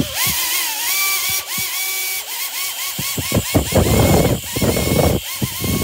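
Blade 230S V2 electric RC helicopter spooled up without main blades: its brushless-driven tail rotor and motors whine, the pitch rising and dipping again and again as the tail motor speeds up and slows. Louder rushes of air noise come about halfway through and again near the end. This is the sound of a correctly mounted tail blade, the way it should sound.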